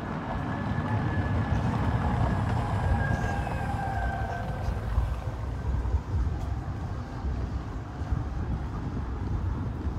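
Outdoor street ambience: a steady low rumble, with a faint high tone wavering through the first half.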